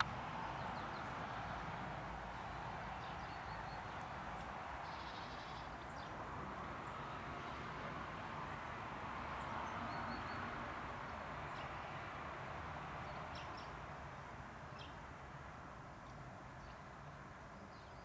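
A few faint, short, high chirps of small garden birds over a steady background rush that eases slightly toward the end.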